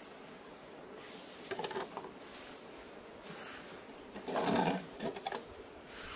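Thin hinged metal windscreen panels rattling and clinking as they are handled and unfolded, in several short bursts with the loudest clatter a little past halfway.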